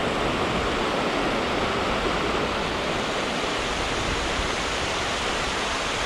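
Water rushing over a low weir: a steady, even rush of falling water with no breaks.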